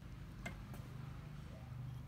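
A low steady hum, like a small motor running, with a sharp click as it starts and another about half a second in.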